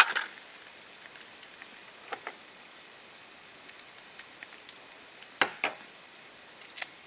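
Scattered light metallic clicks and ticks from a revolver being handled and readied to fire double action, with a stronger pair of clicks a little past five seconds and another click near the end.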